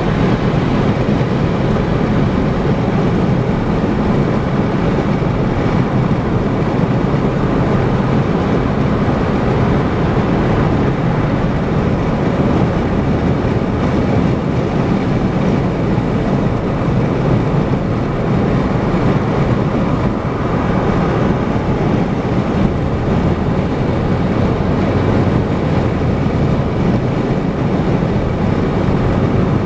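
Steady road noise of a car cruising at highway speed: tyre noise and a low engine hum, even and unchanging.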